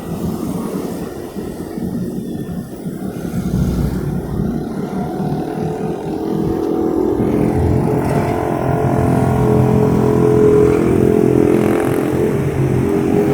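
Road traffic at a crossroad: engines of passing cars and motorcycles running. The sound grows louder, and a steady engine tone builds up about halfway through as a vehicle comes close.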